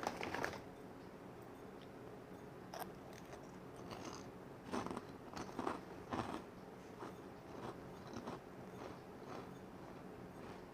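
A person chewing food close to the microphone: irregular soft mouth clicks and crunches, with a few louder ones about halfway through.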